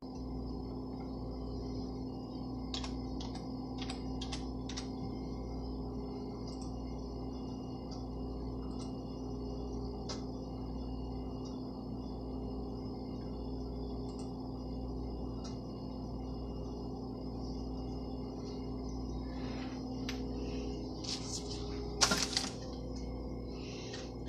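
Steady low electrical hum of room tone with a few faint clicks; near the end, handling noise with a sharp knock as a hand reaches in to the board.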